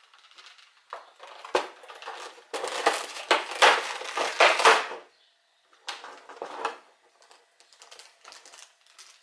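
Plastic packaging crinkling and crackling as the figure's wings are handled and unwrapped, loudest in a dense run from about one to five seconds in, then shorter bursts.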